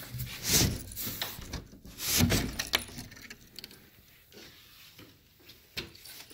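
Handling noise as a thin plywood enclosure side panel and its metal retaining pins are taken off: knocks, rustle and light metallic clinks, loudest about half a second in and again about two seconds in, then quieter fumbling with a sharp click near the end.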